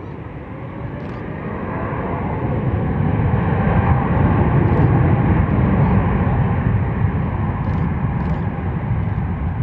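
Jet noise from a Boeing 747-8I's four GEnx-2B engines: a deep, steady rushing sound that swells over the first few seconds to its loudest about halfway through, then eases slightly.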